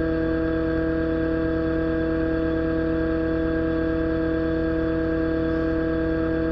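Excavator's diesel engine idling with its boom and bucket at rest: a constant low hum with a clear, steady whine on top, unchanging throughout.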